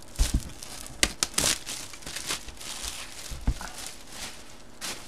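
Hands opening a sealed cardboard trading-card box: packaging crinkling and tearing, with scattered clicks and taps against the cardboard.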